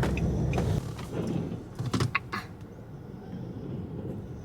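Inside a car: a steady low hum of the vehicle, with a few short clicks and knocks about two seconds in.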